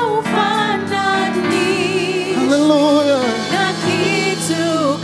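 Live gospel worship song in Swahili: held, melismatic singing over a steady keyboard and band accompaniment.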